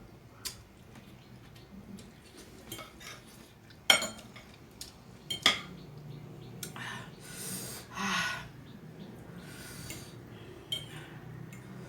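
A metal utensil clinking sharply against a noodle bowl a few times, the loudest about four seconds in, followed by short slurping and eating noises from a mouthful of noodle soup.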